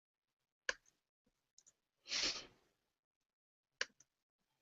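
A few sharp single clicks at a computer, the loudest about a second in and a pair near the end, with a short breath-like rush of noise about halfway through.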